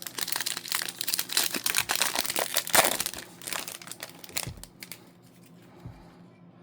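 Upper Deck hockey card pack wrapper being torn open and crinkled by hand: a busy run of crackling and tearing that is loudest about three seconds in and dies away near the end.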